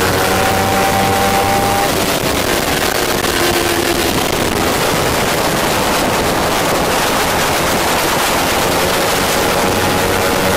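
Kawasaki Ninja 300 parallel-twin engine heard onboard at race speed, holding a steady high-revving note for about two seconds. Through the corner the engine note is lost under a loud rushing of wind on the camera, and the steady note returns at the very end.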